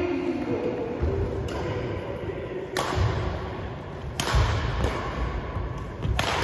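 Badminton rally: sharp racket strikes on the shuttlecock, four of them about a second and a half apart, with thuds of players' footsteps on the wooden court floor.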